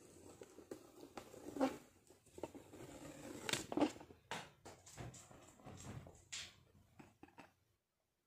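Scattered soft rustles and light clicks and knocks close to the microphone, with two louder brief sounds about a second and a half and almost four seconds in; the sound cuts off abruptly near the end.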